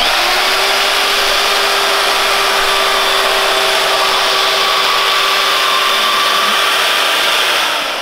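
Bauer portable band saw, stand-mounted, running and cutting through a plastic mini bike front fender. A steady motor hum and blade hiss start at once, then begin to wind down near the end.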